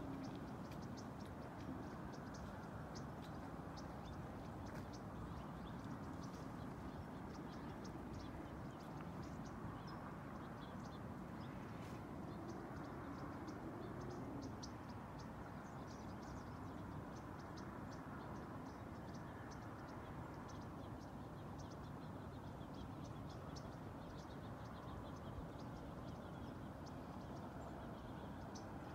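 Outdoor ambience: a steady low hum with frequent short, high chirps from small birds scattered throughout.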